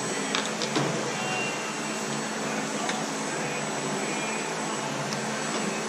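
Steady machine hum and hiss in a large shop, with a few light clicks and knocks from the cab door of a Kubota RTV-X1140 being handled and adjusted: a cluster about half a second in, then single knocks near the middle and near the end.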